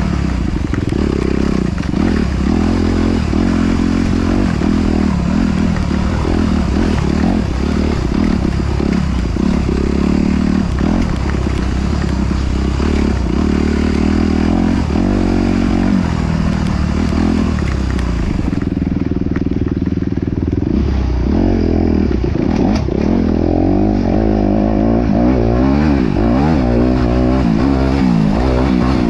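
Off-road vehicle engine running hard, its pitch rising and falling with the throttle and easing back for a couple of seconds past the middle, with clatter and rush from rough ground.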